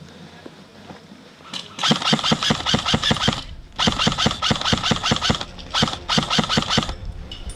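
Airsoft rifle firing on full auto: three long bursts of rapid, evenly spaced shots with short pauses between them.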